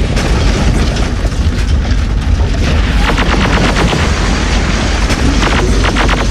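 Battle sound effects: a continuous low rumble of booms and explosions, with rapid automatic weapon fire starting about halfway through.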